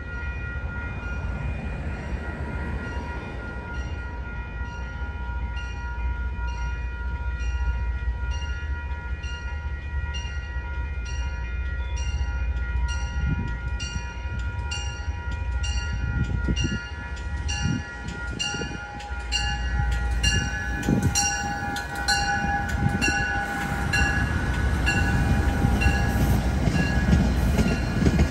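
MBTA diesel commuter train departing: the locomotive's bell rings in a steady, even rhythm over a low engine rumble that grows louder as the train moves off, with a few heavy thumps about halfway through as the coaches start rolling past.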